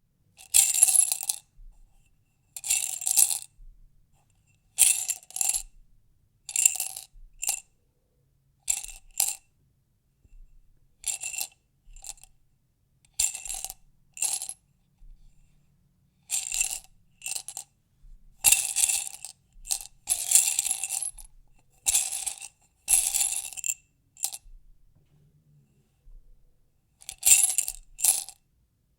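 Small hard objects rattling inside a glass jar as it is shaken in short bursts, about one every two seconds, with brief pauses between shakes.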